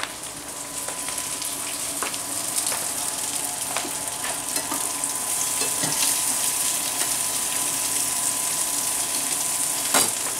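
Panko-breaded pollock fillets frying in a pan of oil: a steady sizzle and crackle. A few sharp clicks sound over it, the loudest near the end.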